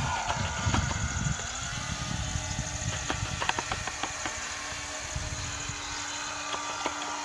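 The three small electric propeller motors of a homemade RC airboat buzzing steadily as it runs across the water, with uneven low rumbling and a few clicks in the middle.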